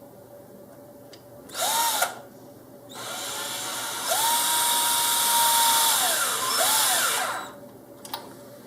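Handheld electric power driver driving a small M3 machine screw into the wing mount. A short spin-up and wind-down about a second and a half in, then a longer run of about four seconds that holds a steady whine and slows near the end, with one brief extra blip.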